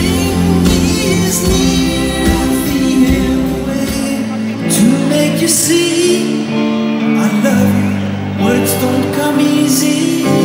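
Live pop band playing with a lead vocal. About four seconds in, the bass drops out for a few seconds, then comes back in.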